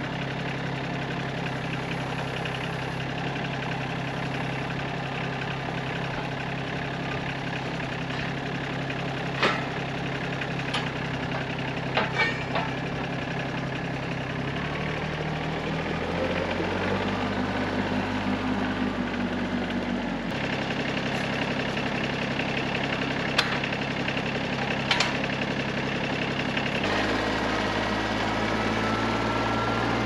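TYM compact tractor's diesel engine running steadily while the front loader is worked, its pitch shifting up and down a few times. A few sharp knocks stand out over it.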